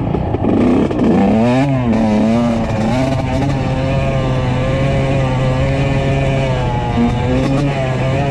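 2003 Yamaha YZ125's 125cc two-stroke single-cylinder engine under riding load, revving up and down in the first couple of seconds, then holding a steady pitch.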